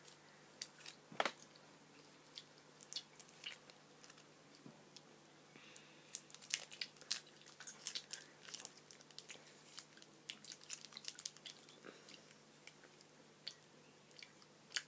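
Soft scattered clicks and crackles of a small MAOAM apple chew being picked out of its paper wrapper with the fingers and chewed, with a busier patch in the middle.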